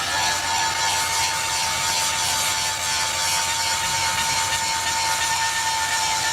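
A power tool working on rail steel runs steadily, a constant high whine over a continuous hiss, as when a rail is ground or cut.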